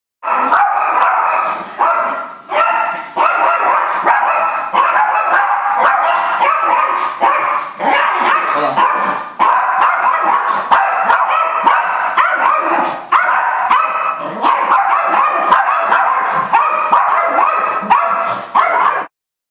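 Small white dogs barking rapidly and without letup, several barks a second: the dog's usual aggressive reaction to a visitor entering the house.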